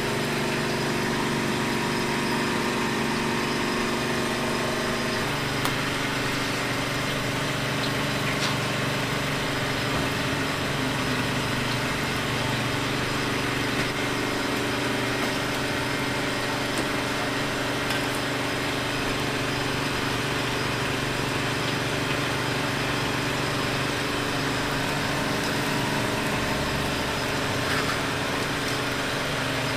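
A small engine running steadily, its hum shifting slightly in pitch about five seconds in, over a constant noisy market background.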